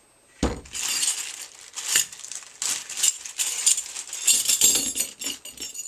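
A thump about half a second in as the hot air gun is set down on the table, then small metal nozzle tips clinking against each other and a plastic bag crinkling as the tips are unpacked.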